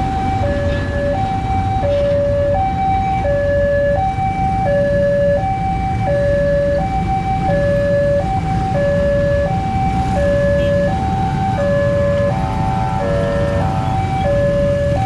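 Electronic level-crossing alarm sounding a steady hi-lo two-tone, a high and a low tone alternating evenly, each held under a second. It runs over a low rumble of diesel locomotive and motorcycle engines.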